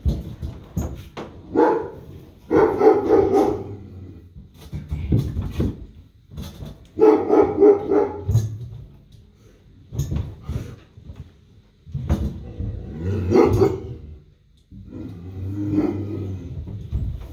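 A dog barking in repeated bouts of several barks each, every few seconds.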